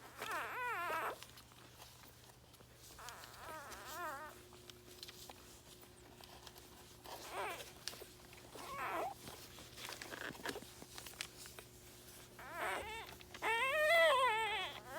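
Newborn Soft Coated Wheaten Terrier puppies whimpering and squealing: several short, wavering cries, with the loudest and longest run near the end.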